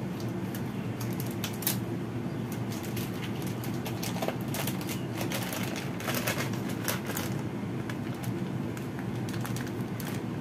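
A plastic food packet crinkling and rustling as it is handled and opened, with scattered sharp crackles, over a steady low hum.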